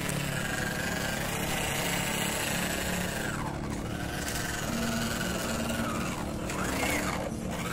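MN86KS mini RC crawler's small electric motor and gearbox whining as the truck drives over dirt and leaves, the pitch rising and falling with the throttle.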